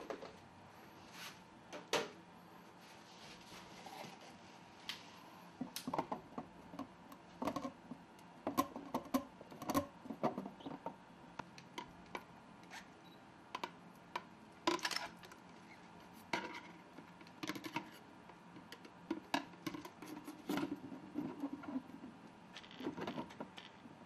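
Scattered sharp clicks and taps in irregular flurries from a Rioc giant cricket and a giant house centipede scuffling in a glass enclosure: their legs and bodies knock against the floor and the glass as they grapple.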